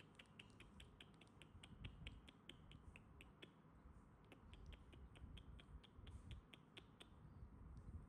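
Faint, rapid clicking, about five sharp clicks a second, in two runs of roughly three seconds each with a short pause about three and a half seconds in; otherwise near silence.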